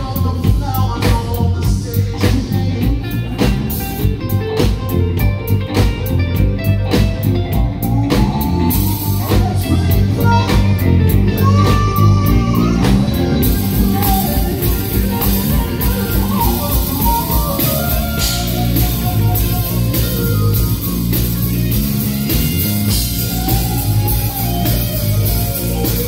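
A live band playing on stage: electric guitars, keyboard and drum kit, with the sharpest drum hits in the first half.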